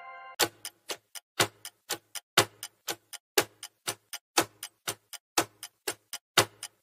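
Clock-ticking countdown sound effect: short sharp ticks about four a second, with a louder tick once a second, marking the time allowed to answer a quiz question. The last of a chime fades out just before the ticking starts.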